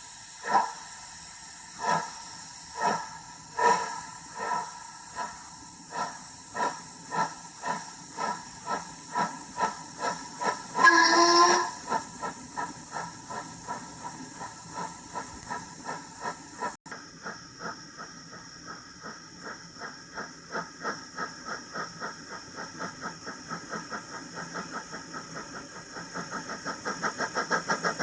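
Model steam locomotive sound system for a Hornby LMS Black 5: exhaust chuffs over a steady steam hiss. The chuffs start about one a second and speed up as the engine gets under way, with a short steam whistle about 11 seconds in. The beat is much quicker in the second half and grows louder near the end.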